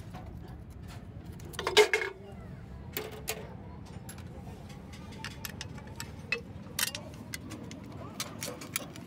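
Metal clicks and clinks of hand tools and steel parts being handled inside a truck gearbox housing, with the loudest clank about two seconds in.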